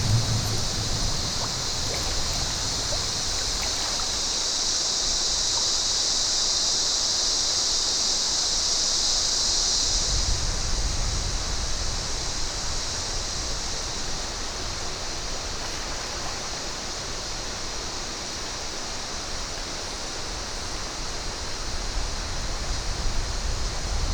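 Rainforest creek water flowing and splashing in a steady hiss. About ten seconds in the hiss eases a little and a low rumble comes in under it.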